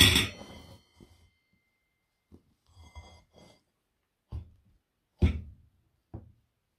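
Metal parts of a Bugatti Brescia clutch knocking together as they are handled: a sharp clank at the start that rings on for a second or two, a couple of light clinks with a faint ring, then three dull knocks, the last two as the clutch assembly is set down.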